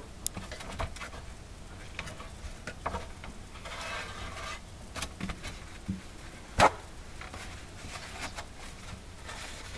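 Hands working against a refrigerator's plastic liner: scattered light taps, clicks and rubbing, with a paper towel brushing the surface. There is one sharp knock about two-thirds of the way in.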